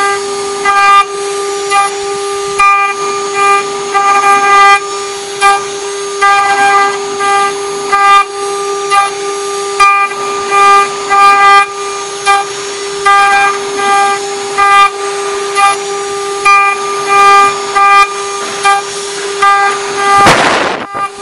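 CNC engraving machine spindle running with a steady whine while its cutter mills a copper dish. Short high-pitched squeals come irregularly, about once or twice a second, as the cutter bites into the metal. Near the end there is a brief loud burst of noise lasting about half a second.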